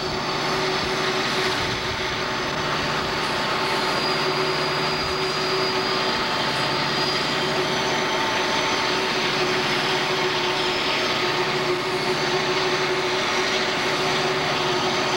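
Several CSX diesel-electric locomotives running under load. There is a steady, loud engine drone with a constant high whine over it, mixed with wheel and rail noise.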